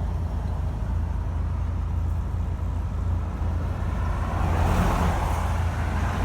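Steady low rumble of road-vehicle traffic, with a louder whoosh of a vehicle going by building from about four seconds in.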